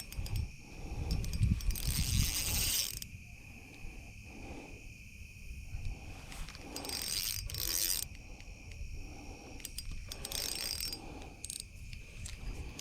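Ultralight spinning reel's drag buzzing in three short bursts, about a second each, as a hooked channel catfish pulls line off against 2-pound test. A steady high insect drone runs underneath.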